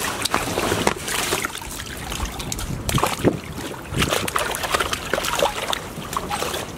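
Golden retriever puppies wading and splashing through shallow water, with water sloshing and many small irregular splashes.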